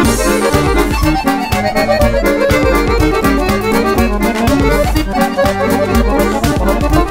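Siwa & Figli chromatic button accordion played solo: a quick melody of many short notes on the treble buttons over recurring bass notes.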